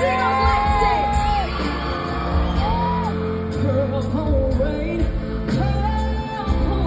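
A woman singing long held notes and short wordless phrases over a live band's slow ballad accompaniment with steady bass notes.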